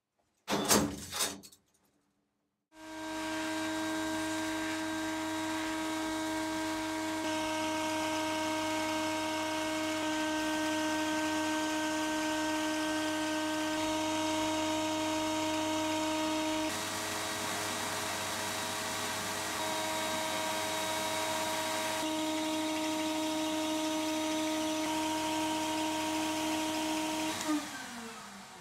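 Sandblasting cabinet running: a steady hiss of the abrasive blast over a motor's steady hum, which winds down near the end. A few brief knocks of metal parts come just before the blasting starts.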